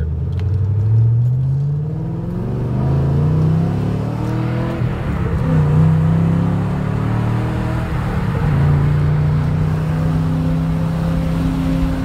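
2012 Camaro SS V8 engine pulling the car along, heard from inside the cabin with road and wind noise: its pitch climbs over the first few seconds, dips around the middle, then holds steady. No mirror whistle is heard: painter's tape over one spot on the mirror seam has stopped it.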